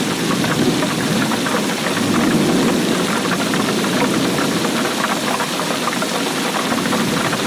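Steady rainfall with a dense patter of many small ticks from the drops.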